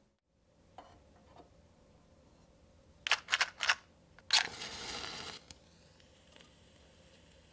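A few quick dry scrapes about three seconds in, then a match struck on a matchbox catches with a sharp flare and hisses for about a second as it burns.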